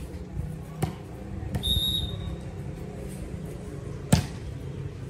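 A volleyball being struck twice, sharp hits about three seconds apart with the second the louder, and a short high-pitched whistle between them, over a low steady background din.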